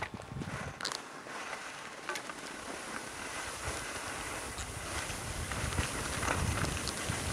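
Skis hissing and scraping over packed snow at speed, with wind buffeting the microphone in low rumbles; the noise grows louder toward the end as the skier picks up speed.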